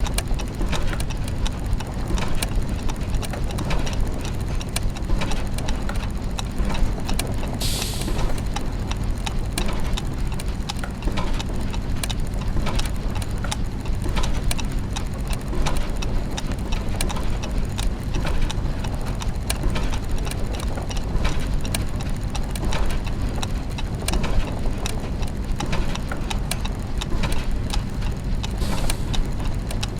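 Clockwork mechanisms and gears turning, many overlapping ticks and ratcheting clicks over a steady low mechanical hum. A short hiss, like a puff of steam, comes about eight seconds in, and a fainter one near the end.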